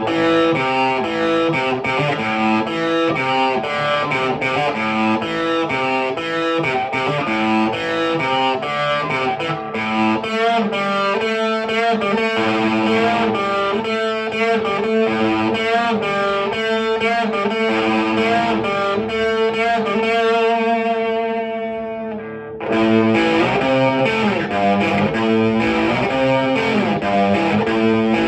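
Distorted electric guitar, a Jackson Soloist Custom with a Seymour Duncan pickup, played through a Marshall JCM900 4502 combo amp with Celestion G12T-75 speakers: a run of fast riffs and lead lines. About twenty seconds in a held note dies away for a couple of seconds, then the playing starts again.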